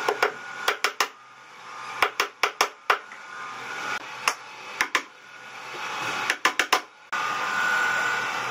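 A small hammer tapping nails through an aluminium sliding-glass door track into a cabinet base, in quick runs of two to four sharp taps with pauses between. A steady noise cuts in suddenly near the end.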